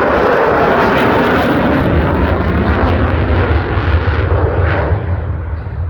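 Loud, steady jet noise from an F-35C Lightning II's single F135 turbofan during a display pass, easing slightly near the end.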